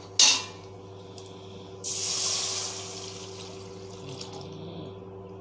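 Toor dal water poured into a kadai of hot tempering oil: a short knock just after the start, then about two seconds in a loud splash and sizzle that fades over the next few seconds.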